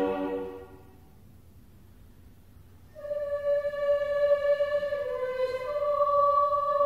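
Mixed choir singing unaccompanied. A full chord ends and dies away in the chapel's echo within about a second, followed by a pause of about two seconds. High voices then come back in on long held notes, with a second voice joining a couple of seconds later.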